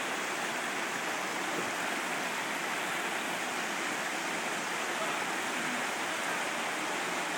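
Shallow creek water rushing steadily over rocks, an even hiss.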